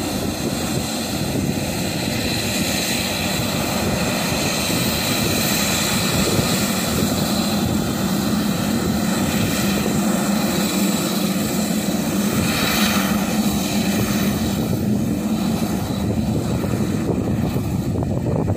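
Twin Pratt & Whitney PT6A turboprop engines of an N219 aircraft running on the ground: a steady high turbine whine over a low propeller drone.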